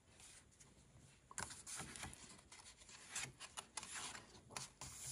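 Faint paper rustles and scrapes as a hand slides over and turns the pages of a large softcover colouring book. They start about a second and a half in.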